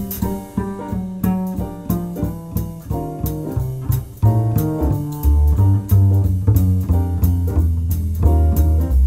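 Instrumental background music with a steady beat over a bass line.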